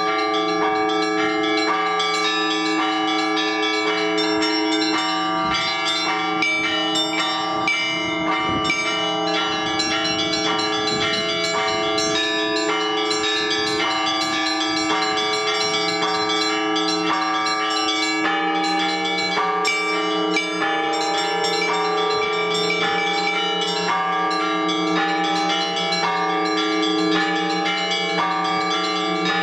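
Orthodox church bells rung by a bell-ringer to call worshippers to the all-night vigil. Small bells chime in a quick, dense pattern over the sustained ring of the larger bells, and a deeper bell sounds more strongly from about two-thirds of the way in.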